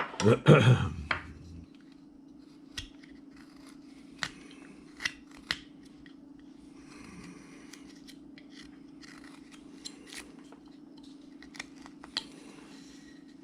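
Woodcarving knife slicing and paring wood in short strokes, with scattered small clicks and brief scraping cuts over a steady low hum.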